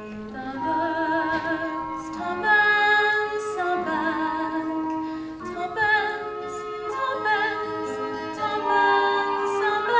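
Slow, gentle musical introduction: several notes held together with vibrato, moving to new chords every second or two.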